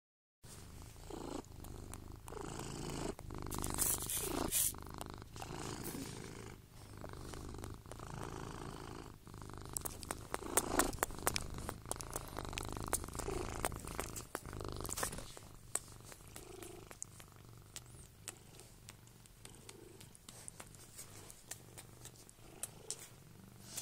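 Domestic cat purring close to the microphone, a steady low rumble that grows fainter after about fifteen seconds. Rustles of bedding and short handling clicks sound over it.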